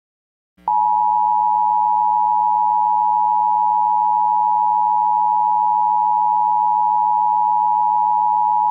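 Emergency alert attention tone: one loud, steady, high-pitched electronic tone starting after a short silence, about half a second in.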